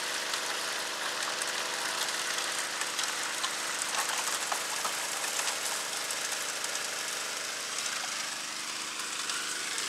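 Small gas engine of a water pump running steadily while water gushes out of the end of a high banker's sluice box.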